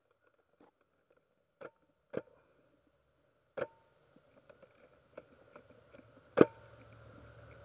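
Scattered sharp clicks and knocks, about five distinct ones with fainter ticks between them, the loudest about six seconds in. A low steady rumble comes in after that loudest click.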